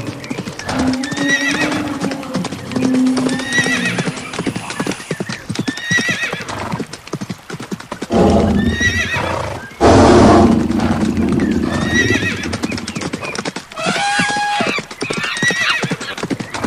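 Horse hooves clattering at a run, with horses whinnying every second or so. A louder stretch of neighing and hoofbeats comes about eight to eleven seconds in.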